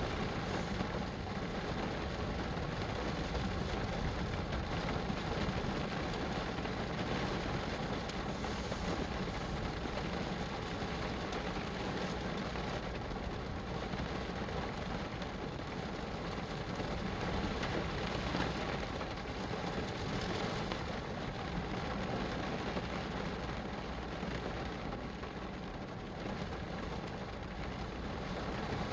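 Steady rain falling, an even hiss with a continuous low rumble underneath.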